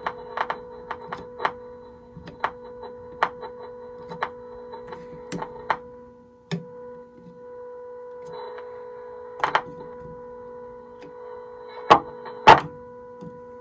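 Steady tone of a signal generator's test signal coming out of a 1937 Emerson L122 tube radio's speaker, with scattered clicks and scrapes of a screwdriver turning the IF transformer trimmer screws. The tone is being peaked during IF alignment. It dips briefly about six seconds in, and two louder clicks come near the end.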